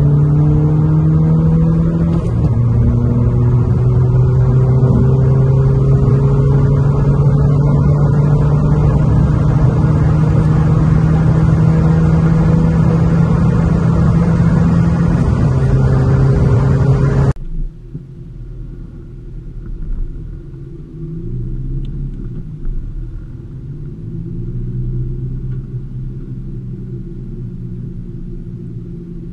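Turbodiesel (TDI) car engine heard from inside the cabin under hard acceleration at high speed: a loud, steady drone that drops at an upshift about two seconds in, then slowly climbs in pitch. After an abrupt cut partway through, a second diesel car's engine is heard much more quietly at low speed, rising and falling as it revs gently.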